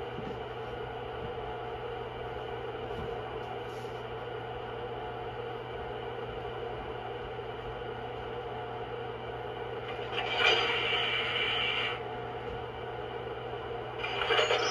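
MTH RailKing Virginian E-33 rectifier electric locomotive model's sound system idling at a standstill: a steady electrical hum made of several fixed tones. About ten seconds in, a louder hiss rises for about two seconds, and a shorter one comes near the end.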